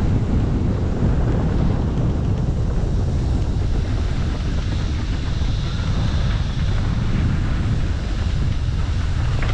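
Steady wind buffeting a helmet camera's microphone at speed, mixed with tyre rumble on a dirt trail during a downhill mountain-bike run.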